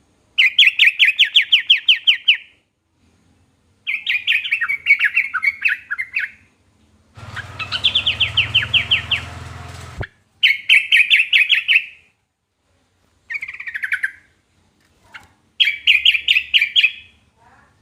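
Yellow-vented bulbul (trucukan) singing in repeated chattering phrases of quick, evenly pulsed notes, each phrase about two seconds long with short pauses between. A low hum sits behind one phrase in the middle and cuts off abruptly about ten seconds in.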